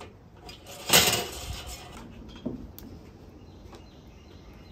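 Hinged steel cooking grate of a Weber charcoal kettle clattering as it is handled, with one loud metallic rattle about a second in and a lighter clink about two and a half seconds in.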